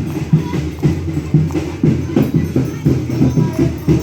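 Folia de Reis folk music: an ensemble playing with a steady percussion beat, tambourine-like jingles over a full low accompaniment.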